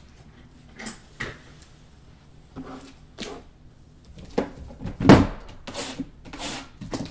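A cardboard trading-card box being handled and moved about on a table: a scatter of light knocks and rubs, the loudest about five seconds in.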